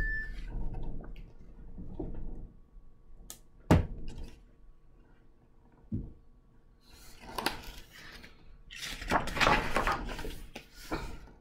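A picture book being handled: a few sharp knocks and taps about three and a half and six seconds in, then the rustle of paper as a page is turned near the end.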